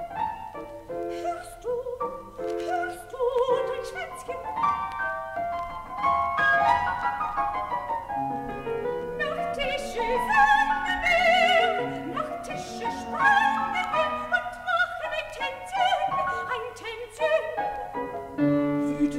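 Classical art song played from a vinyl LP: a soprano singing with wide vibrato over a busy piano accompaniment.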